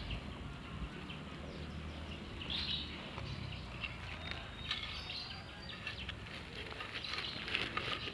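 Birds chirping now and then over a steady outdoor background, with faint rustling of hands working loose garden soil.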